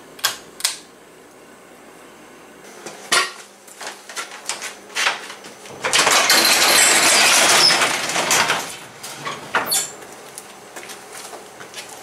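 Two clicks of a pull-chain light switch. Then a run of knocks and clacks as a sectional garage door is unlatched, and a loud rattling rush for about two and a half seconds as the door rolls up its tracks, with a few knocks after it.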